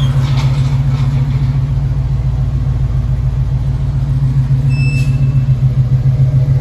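A 1975 Chevrolet Caprice Classic's V8 running at idle, a steady low drone. A brief high chirp about five seconds in.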